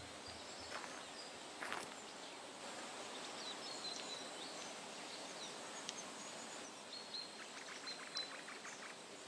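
Quiet rural ambience with faint, scattered bird chirps. There are a couple of soft knocks or steps in the first two seconds and a short, rapid trill about eight seconds in.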